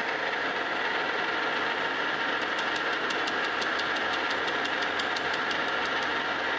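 Metal lathe running with a steady whine while a carbide cutter faces a brazed cast iron casting. From about two and a half seconds in, the cutter meets a raised glob of braze, and the interrupted cut gives a rapid, regular ticking of several ticks a second.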